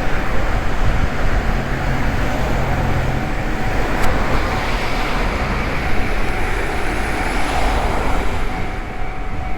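A train running through a railway level crossing, its wheels and running gear rumbling, while the crossing's warning bell sounds throughout. A single sharp click about four seconds in.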